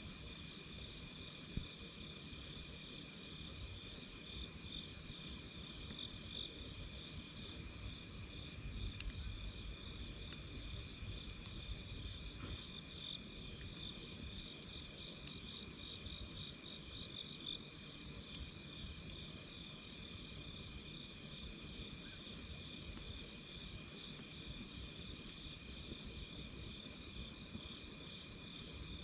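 Campfire ambience: the fire crackling and rumbling low, under a steady high pulsing chirp of night insects. No music box is heard.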